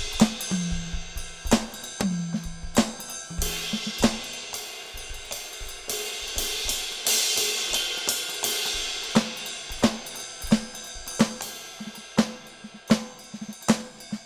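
2Box Drumit 5 MKII electronic drum kit played in a steady beat of kick, snare and hi-hat, with cymbals washing out in the middle.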